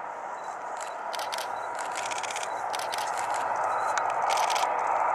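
Jet engine noise of an approaching Airbus A380 on final approach, its four Engine Alliance GP7200 turbofans growing steadily louder. Repeated bursts of rapid camera shutter clicks sound over it.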